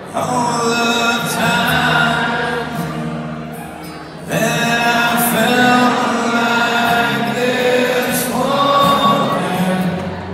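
Live acoustic performance: a man singing long, held lines over a strummed acoustic guitar, with fresh strums at the start and again about four seconds in.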